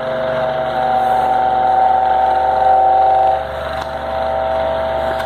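Wall-mounted electric fan running with a loud, steady vibrating hum, its vibration carried into the wall and made louder by the hollow masonry blocks it is mounted on. The hum swells from about a second in and eases back after about three seconds.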